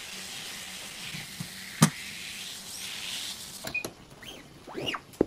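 Silkscreen squeegee and ink working on a printing screen: a steady scraping hiss with one sharp click about two seconds in, then short squeaks that rise and fall near the end as the squeegee moves over the screen.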